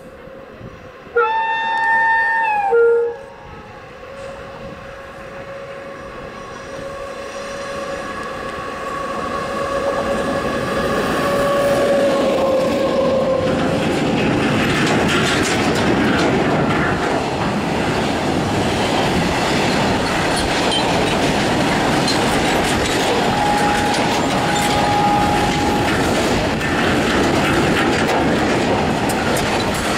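Electric freight locomotive sounds its horn for about two seconds as it approaches. Then a long freight train of open wagons rolls past close by, with a steady rumble and clatter of wheels on the rails that builds up and holds. A short squeal of wheels comes about three quarters of the way through.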